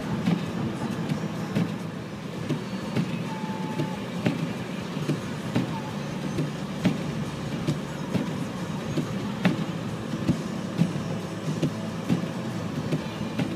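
A car driving slowly on snowy roads, heard from inside the cabin: a steady low rumble of engine and tyres with frequent small knocks and thuds throughout.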